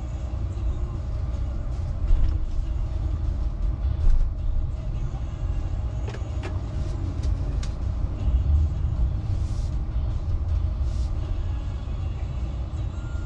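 Low, steady rumble inside a Tesla's cabin as the electric car rolls slowly in reverse out of a driveway and into the street, with a few short clicks about halfway through.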